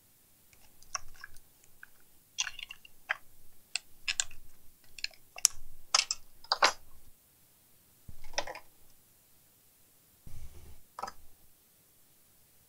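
Irregular small clicks, taps and scrapes of hands and a hand tool handling a TV power supply circuit board and its parts on the bench, busiest in the first seven seconds. A scrape comes about eight seconds in, then a dull knock and a click near the end.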